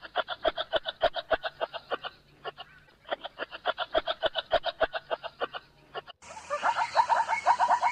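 Kangaroo clucking: a rapid series of short clicking calls, several a second, in two runs with a brief pause between them. About six seconds in, a different, louder pulsed animal call takes over.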